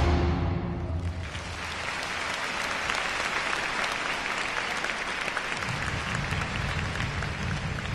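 Arena crowd applauding as the floor music's last notes die away; the clapping builds about a second in and holds steady, with a low rumble joining near the end.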